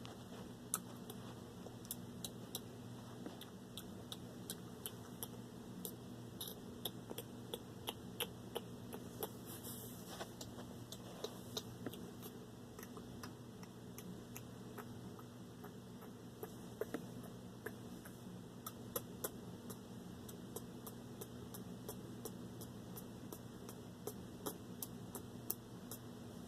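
Faint, irregular mouth clicks and lip smacks, a few every second, over a steady low hum.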